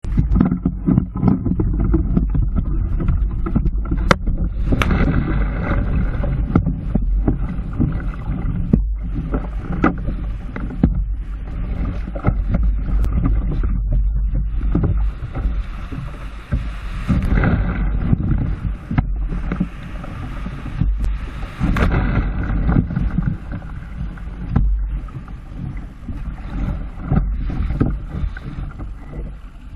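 Surf breaking and churning around a sit-on-top kayak as it is paddled out through the shore break, with water splashing against the hull and heavy wind rumble on the microphone. The wash eases a little near the end.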